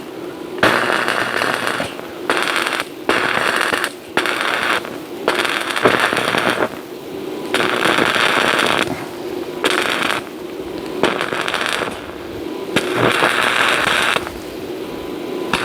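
Electric arc welding crackling in repeated short bursts, each about a second long, stopping and starting again.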